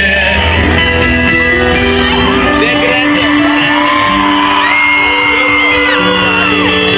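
Live piano music holding sustained chords while a large crowd sings along, shouts and whoops, with high screams rising and falling about two-thirds of the way through.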